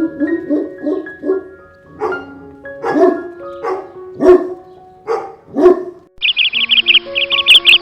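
A dog barking: quick yaps for the first second or so, then about six louder single barks. Near the end, fast high-pitched chirping takes over. Background music with steady notes runs underneath.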